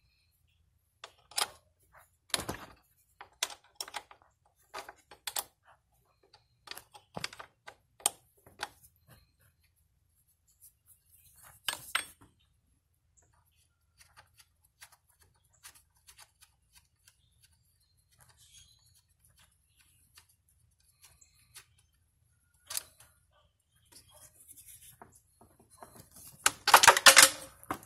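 Sharp metallic clicks and clinks of a 10 mm wrench working the terminal bolt on a lawn tractor battery, coming singly and irregularly with gaps between. Near the end comes a louder, longer metal rattling clatter.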